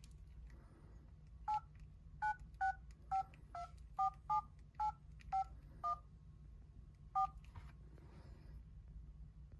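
Keypad touch-tones of an old Samsung mobile phone as a number is dialled: eleven short beeps at an uneven pace, with a longer pause before the last one.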